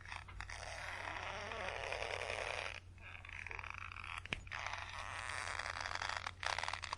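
Rope under tension creaking and straining in long stretches of a few seconds each, separated by brief pauses, with one sharp click about four seconds in.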